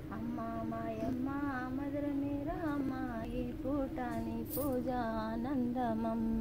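Female voices singing a Telugu devotional song in short, bending melodic phrases over a steady held drone.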